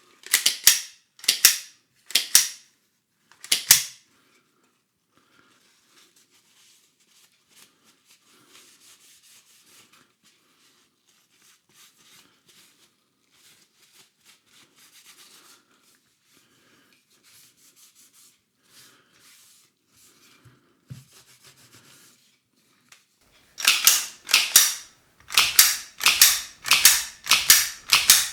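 Slide of a Glock 17 Gen 4 replica BB pistol being pushed back onto the frame and worked back and forth, freshly lubricated to cure a sticky slide. It gives a string of sharp clacks: about four at the start, faint handling noise in between, then about seven rapid clacks near the end as the slide is racked repeatedly.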